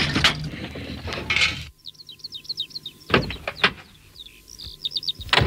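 Music that cuts off suddenly about a second and a half in, followed by birds chirping. Over the chirps come the clicks and clunk of the post van's door being opened, and a sharp door shut near the end.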